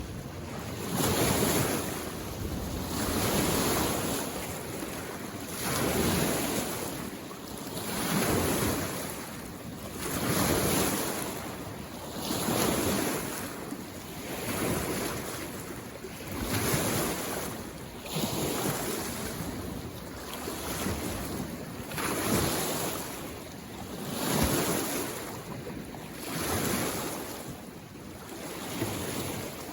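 Small waves lapping on a mountain lake shore, a wash of water that swells and fades about once every two seconds.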